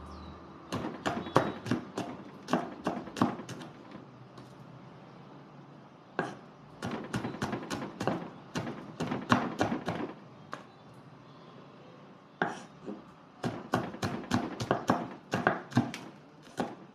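Large kitchen knife chopping red chillies on a wooden cutting board: quick blade knocks against the wood, about four a second, in three runs with short pauses between them.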